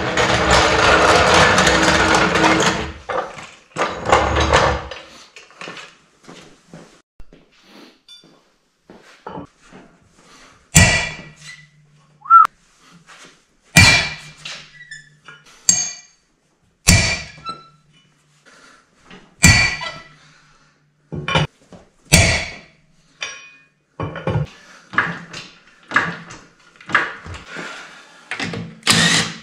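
A steel floor jack rumbling as it is rolled across a concrete floor, then sharp metallic clanks about every three seconds, coming closer together near the end, as tools are worked at a car's front wheel.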